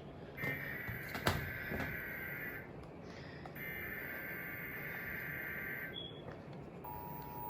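Emergency Alert System SAME header: two bursts of warbling digital data tones, each a little over two seconds long with about a second's pause between them. Near the end the steady two-note EAS attention tone begins, signalling that an emergency alert is about to be read.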